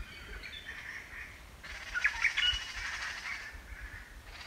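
High chirping animal calls, loudest about two seconds in.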